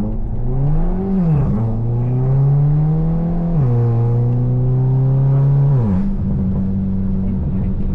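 2017 Volkswagen GLI's Stage 1-tuned 2.0T turbocharged engine pulling under acceleration. Its pitch climbs through each gear and drops at the upshifts about one and a half and three and a half seconds in. Near six seconds the revs fall again and the engine then holds a steady note.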